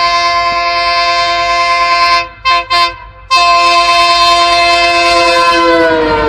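A train's multi-note air horn held in one long loud chord, broken by two short toots about two and a half seconds in, then held again and falling in pitch near the end as the train passes.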